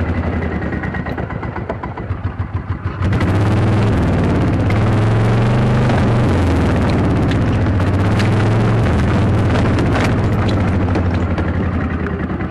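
Club Car gas golf cart engine running. It sags and sputters about two seconds in, then picks up sharply about a second later and runs strong, easing slightly near the end. This is the engine running after it had been flooded with gasoline.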